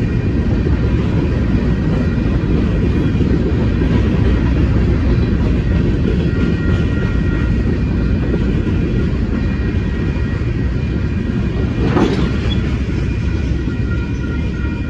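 Freight cars rolling past on the rails: a steady, loud rumble of wheels on track, with faint steady high tones above it. A single sharp clank comes about twelve seconds in.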